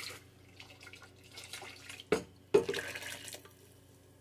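Water sloshing and pouring as a glass blender jar is rinsed out with a little water and emptied into a pan of tomato sauce, with two sharp knocks of the jar a little past halfway.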